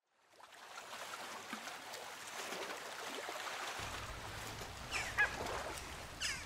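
Faint outdoor lakeside ambience with waterfowl giving a few short calls in the second half. A low steady hum comes in about halfway through.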